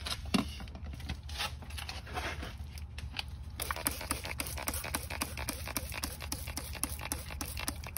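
Hand trigger spray bottle being pumped, squirting liquid up onto a truck's front suspension. After some handling noise, it settles about halfway through into rapid, regular squirts, about four a second.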